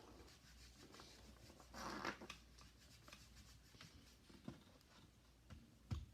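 Faint rubbing and a few light taps of Play-Doh being cut and handled with a modeling tool, with a short scraping rub about two seconds in.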